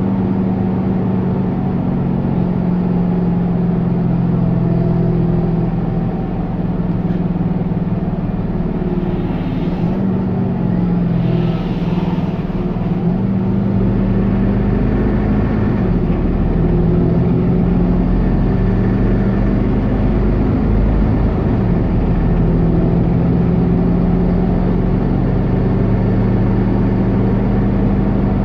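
Mercedes-Benz O530G Citaro C2 articulated city bus under way, heard from inside the passenger cabin: the engine and its Voith D864.6 automatic gearbox hum steadily, the pitch dipping and rising several times as the bus changes speed. A brief hiss comes about ten to twelve seconds in.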